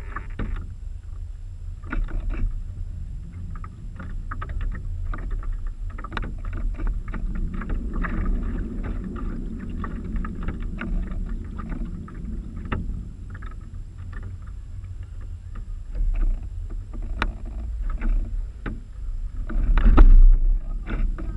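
Water slapping and splashing against the hulls of a radio-controlled Mini40 model trimaran, heard close to the water, over a steady low rumble of wind on the camera's microphone. A louder burst of noise comes near the end.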